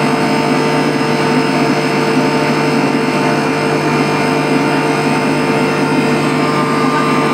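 Electric motor-driven fire pump running at steady speed: a loud, even machine hum with several constant tones that do not change.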